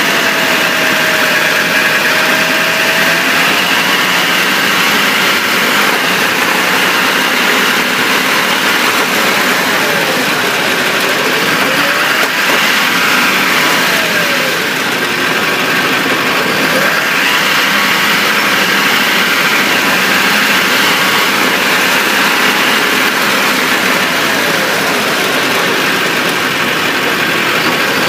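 Steady road, engine and drivetrain noise heard from under a 2004 Chevrolet Silverado 2500HD on the move, beside its spinning driveshaft at the transfer case. A faint whine dips and rises in pitch several times as the speed changes.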